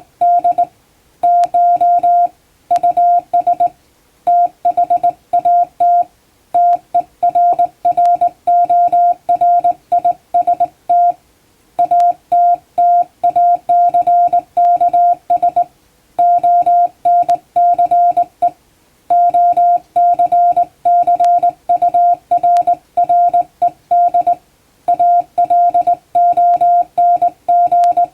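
Hand-keyed Morse code (CW): a single beep tone switched on and off in quick dots and dashes, sending plain-language English text, with short pauses between groups.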